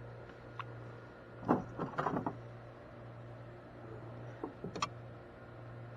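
Two short clusters of light knocks and rattles in a kayak, about one and a half seconds in and again near the end, over a steady low hum.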